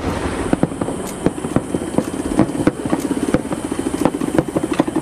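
Fireworks going off: a dense, fast crackle of many small pops, with louder bangs scattered among them.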